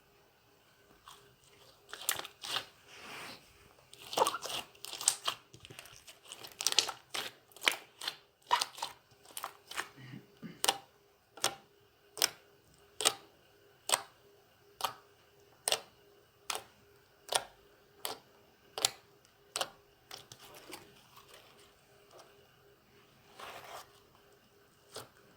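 Slime being squeezed and worked by hand, making sharp pops and crackles as trapped air bursts; through the middle the pops come regularly, a little more than one a second.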